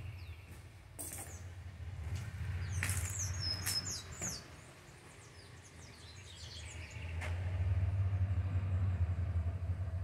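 Small birds chirping in a quick cluster of high, gliding notes about three seconds in, over a steady low rumble that grows louder over the last few seconds.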